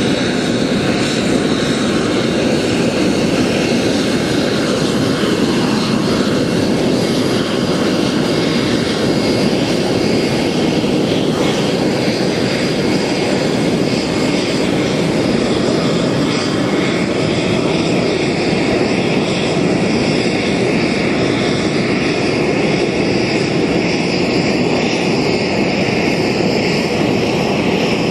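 F-16AM fighter's Pratt & Whitney F100-220E turbofan running steadily on the ramp: a loud, even rushing noise with a faint high whine over it.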